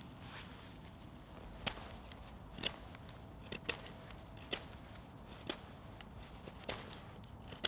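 Bushcraft knife whittling a thin wooden stick: a series of short, sharp cutting clicks as the blade takes off shavings, about one a second at uneven intervals.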